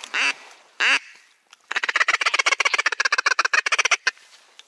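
Duck quacking: two loud single quacks, then a fast run of short quacks, about ten a second, for a little over two seconds.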